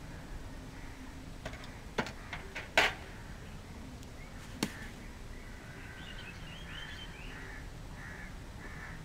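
A bucket set down on brick paving: a few sharp knocks about two seconds in, the loudest near three seconds, and one more knock a little later. Birds call faintly in the second half.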